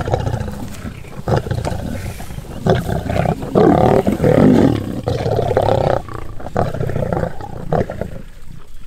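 Lions growling and snarling as they fight over a freshly killed impala, loudest about three and a half to six seconds in.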